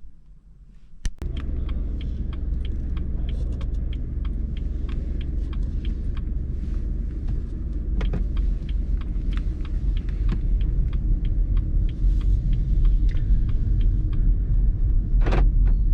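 BMW 1 Series car on the move: a steady low rumble of engine and road noise that starts abruptly about a second in, with many light clicks and rattles through it.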